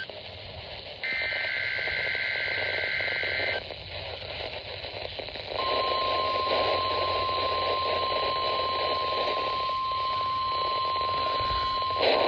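NOAA Weather Radio weekly test received through static: a harsh warbling data burst (the SAME header) lasting a couple of seconds, then a pause, then from about five and a half seconds the steady single-pitch warning alarm tone. A brief crackle comes near the end.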